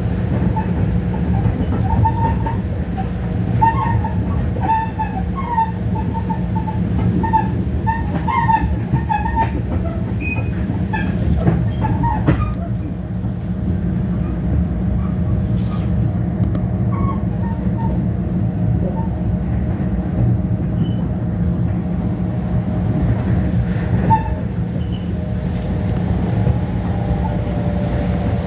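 Long Island Rail Road commuter train running at speed, heard from inside the car: a steady low rumble of wheels on rail with a faint constant whine. Short squeaks from the wheels come in quick succession over the first dozen seconds, and scattered clicks sound over the rail joints.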